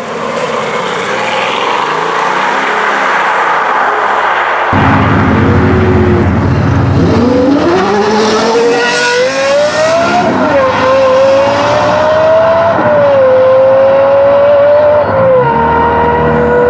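Lexus LFA's V10 accelerating hard, its pitch climbing steadily and dropping at three quick upshifts as it pulls away. Before it, for about the first five seconds, a Bugatti Veyron pulling off with a broad rushing engine and exhaust sound.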